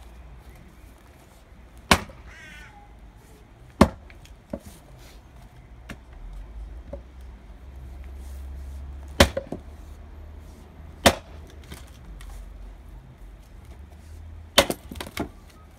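Splitting axe chopping firewood rounds on a chopping block: a handful of sharp wooden chops a few seconds apart, with a quick cluster of knocks near the end.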